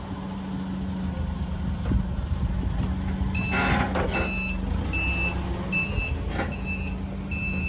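Forklift engine running steadily. About three seconds in, a clatter as the forks slide out from under the stacked wooden pallets, and the forklift's reverse alarm starts beeping about once a second as it backs away.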